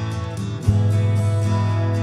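Background music on plucked acoustic guitar, with a strong new low note struck less than a second in.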